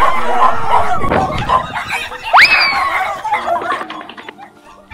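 A dog barking and yelping. About two seconds in comes a whistle that shoots up in pitch and then slowly slides down.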